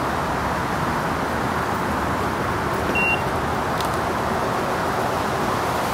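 Steady background rushing noise, with a short high beep about three seconds in.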